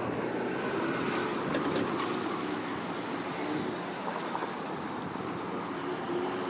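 Street traffic: cars driving past on a city road, a steady hum of engines and tyres.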